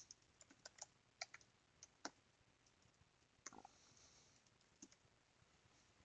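Near silence broken by a scattering of faint, irregular clicks of computer keys.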